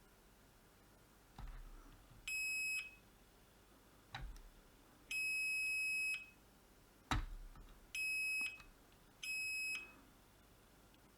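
Digital multimeter beeping in diode or continuity test mode as its probes are touched across rectifier diodes on a charger's circuit board: four steady high beeps, the second about a second long and the others about half a second, with a few sharp clicks of the probes against the board between them.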